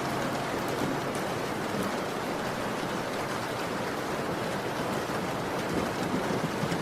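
Steady rain falling, an even hiss without music.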